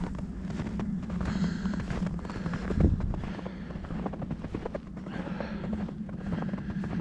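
Footsteps crunching through snow: a run of irregular crunches and scuffs, with one louder knock about three seconds in.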